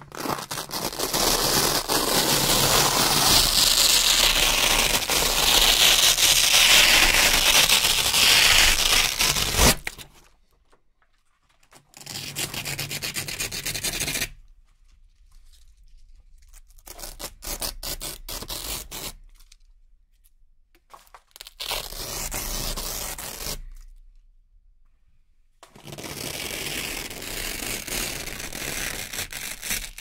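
Velcro hook-and-loop strips being peeled apart with a crackling rip. There is one long peel of about ten seconds, then four shorter peels of two to four seconds each, with short pauses between them.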